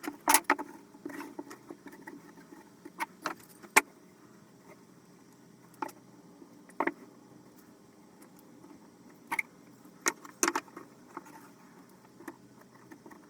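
Scattered light knocks and clacks of wooden shelf boards being handled and shifted into position, over a faint steady low hum.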